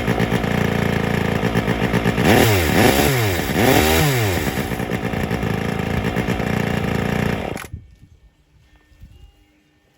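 Yanmar RH 350 S Wankel rotary-engine chainsaw running. It is blipped to high revs about three times in quick succession, then settles back to a steady run. The sound cuts off suddenly near the end. The engine is set deliberately rich.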